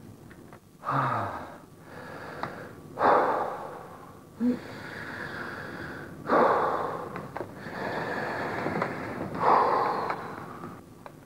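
A man breathing deeply and heavily through his mouth: a few long, loud breaths, one about every three seconds, as he goes into a trance.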